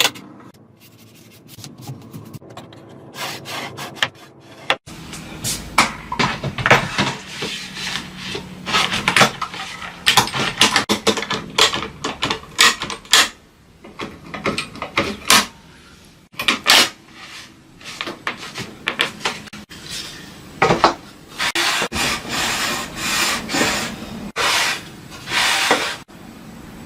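Wood being scraped by hand in many short, irregular rubbing strokes, as with a rasp, file or sandpaper, broken off abruptly a few times.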